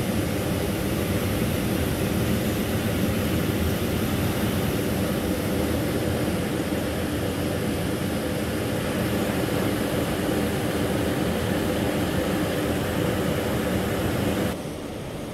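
Steady rushing drone of air conditioning, with a few faint steady hum tones under it; it drops away suddenly near the end.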